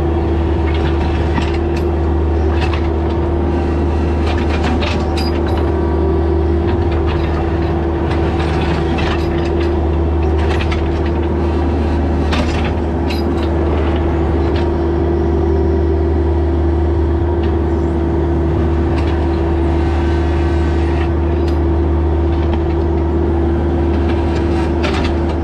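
Rock hammer pounding on hard rock, a steady rattling clatter over an engine running at a constant, steady pitch.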